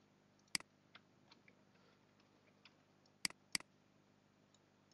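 Sharp clicks of a computer mouse: one about half a second in and a quick pair a little past three seconds, with a few faint ticks between.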